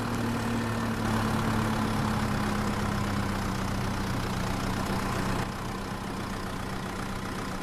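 Small motor running with a steady low hum, dropping slightly in level about five and a half seconds in.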